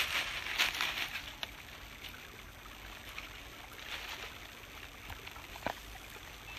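Rustling and footsteps through brush and leaves, in irregular bursts at the start and again about four seconds in, with one sharp snap near the end. Behind them runs the faint steady trickle of a brook.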